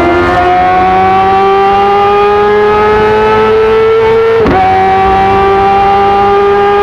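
Kawasaki ZX-25R's 249 cc inline-four through an Arrow titanium full-system exhaust, pulling under steady acceleration with its pitch climbing slowly. It shifts up about four and a half seconds in, with a sudden drop in pitch, then climbs again and shifts once more at the very end.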